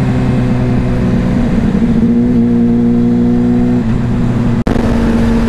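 Suzuki GSR 600's inline-four engine running under way with wind noise from riding. The engine pitch steps up about two seconds in and drops again about four seconds in. The sound cuts out for an instant near the end.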